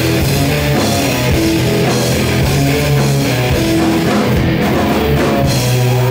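Rock band playing live and loud: distorted electric guitars over bass guitar and a drum kit with crashing cymbals.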